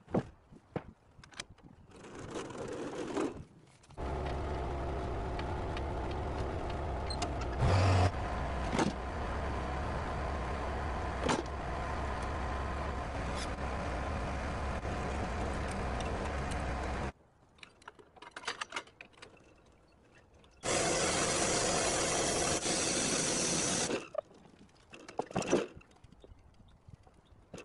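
Bandsaw sawmill's small gasoline engine running steadily for about thirteen seconds, then cutting off abruptly, with scattered knocks of wooden slabs and boards being handled. Later, a loud hiss for about three seconds.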